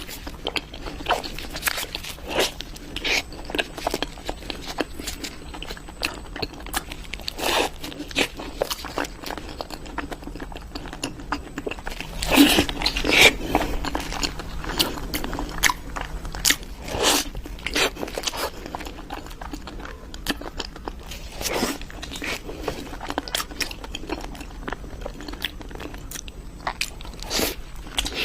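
Close-miked biting and chewing of crunchy sweets: a steady run of crisp crunches, with a louder cluster about halfway through.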